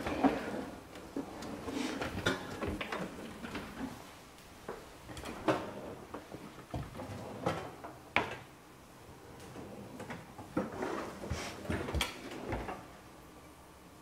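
Kitchen cupboards and drawers being rummaged through: doors and drawers opening and shutting, with scattered knocks and clatter of dishes being moved.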